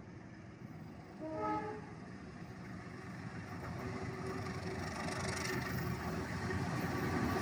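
Diesel locomotive sounding one short horn blast about a second in, then the rumble of the approaching passenger train growing steadily louder as it nears on the adjacent track.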